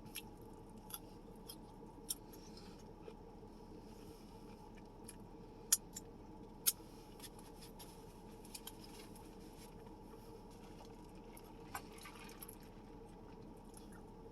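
Close-up eating sounds: quiet chewing with small wet mouth clicks and occasional sharp ticks, the two loudest near the middle, over a steady low background hum.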